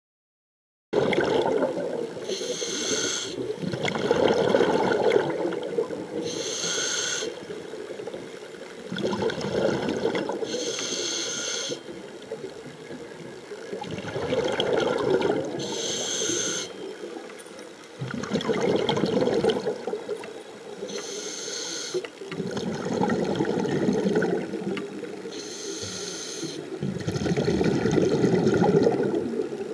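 A scuba diver breathing through a regulator underwater. Each breath is a short hissing inhale followed by a longer bubbling exhale, about one breath every four seconds, starting about a second in.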